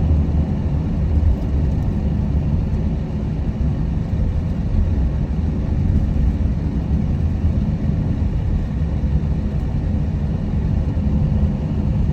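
Steady low road rumble and engine noise from a minivan driving on a country road, heard from inside the cabin.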